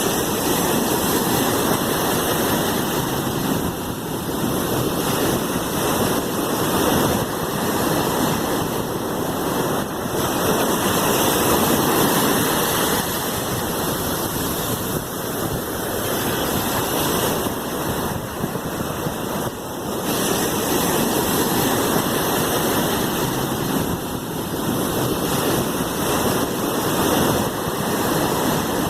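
Sea waves washing continuously: a steady rushing surf that swells and eases slowly every several seconds.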